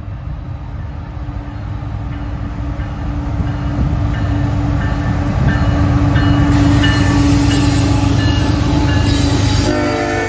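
Freight train's diesel locomotives running past on a curve, their rumble building to a peak as the lead unit draws alongside. A steady low tone runs under it, with short high squeals from the wheels. Music cuts in just before the end.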